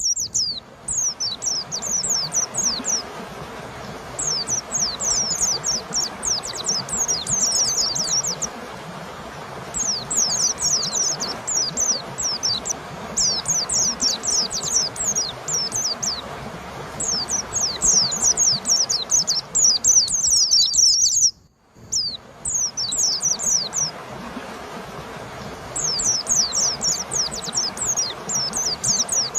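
White-eye (pleci) singing: fast runs of high, thin, downward-sweeping notes in bursts of a few seconds, separated by short pauses, over a steady background noise. The sound drops out for a moment about two-thirds of the way through.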